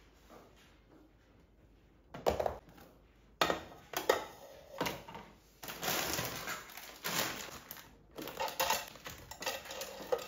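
Irregular kitchen handling noises beginning about two seconds in: plastic and glass storage canisters knocked and set down on a countertop, a crinkly plastic pasta bag rustling, and dry pasta nests dropped into a glass canister.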